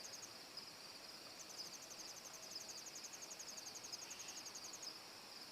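Faint crickets chirping in a rapid, even, high-pitched pulse.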